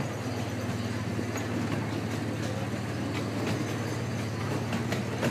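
Miniature ride train running along its track with a steady low hum, wheels clicking now and then over the rails.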